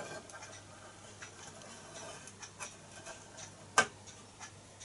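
Scattered light clicks and taps from the metal parts of a Mastrand toy steam traction engine being handled, at an uneven pace, with one sharper click about four seconds in.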